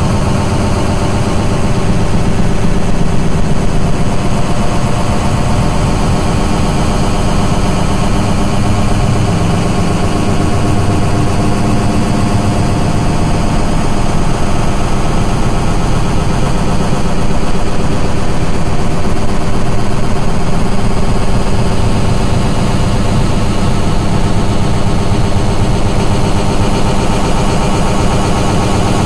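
Loud, dense, distorted electronic noise-music drone, heaviest in the low end, with a fast grainy pulse and no voice.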